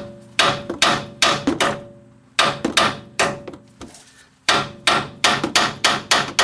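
Hammer blows on the steel steering knuckle arm of a 2002 Mitsubishi Lancer, knocking the outer tie rod end's tapered stud loose from the knuckle. The blows come in three quick runs of sharp metal strikes, about three a second, with short pauses between the runs, and each strike leaves a brief metallic ring.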